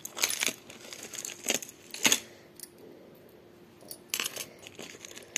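Bangles clinking and rustling as they are handled and lifted out of a jewellery box: a handful of short, separate clinks with quiet gaps between.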